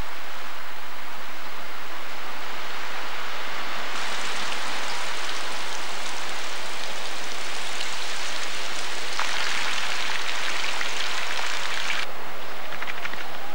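Cloudburst: heavy rain hissing steadily, with rainwater running over rock. It grows louder about four seconds in and again a little past halfway, then stops suddenly near the end, leaving a few faint ticks.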